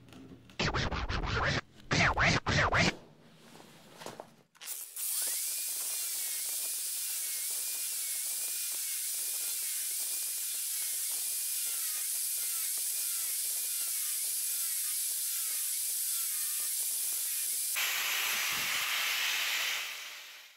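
A few loud knocks and rattles, then an angle grinder with a thin cutting disc runs steadily for about fifteen seconds, cutting through a PVC sewer pipe to take off its socket end. It makes a high hiss with a faintly wavering whine, turns coarser a couple of seconds before it stops abruptly.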